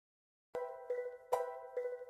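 Complete silence for about half a second, then background music starts: a light tune of sharply struck, plucked-sounding notes, several a second.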